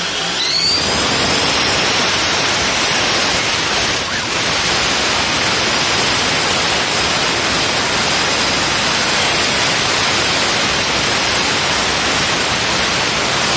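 Turbocharged engine under revs: a whistle rising in pitch in the first second, then a loud, steady hiss. Typical of exhaust gas leaking at a burnt exhaust manifold gasket, which leaves the turbo noisy and weak.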